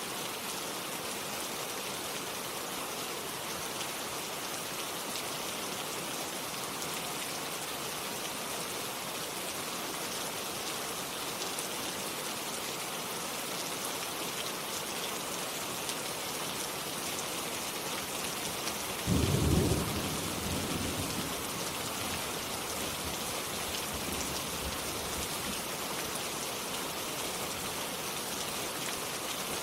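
Steady rain falling, with a sudden low thunderclap about two-thirds of the way through that dies away in a short rumble.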